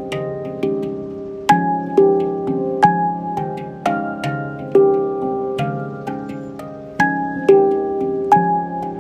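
Handpan played by hand: a steady, unhurried melody of single struck notes, each ringing on with clear overtones and fading as the next is struck, about two notes a second.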